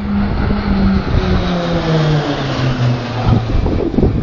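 Pilatus PC-9/A turboprop engine drone as the aircraft flies past, its pitch falling steadily as it passes.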